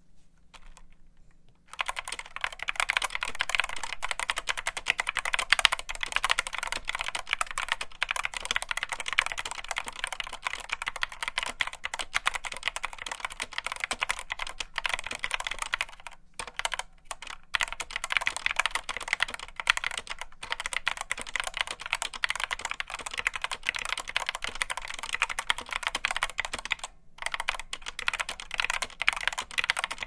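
Steady fast typing on a Geek GK61 60% keyboard with stock, unmodded Gateron Optical Black linear switches. The key clicks start about two seconds in and run dense, with a few short pauses around the middle and near the end.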